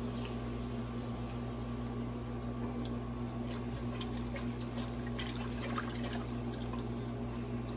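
Milk poured from a plastic jug into a hot roux of flour and sausage grease in an enamelled Dutch oven, then whisked in to start a sausage gravy. From about three seconds in, the wire whisk scrapes and clicks against the pot.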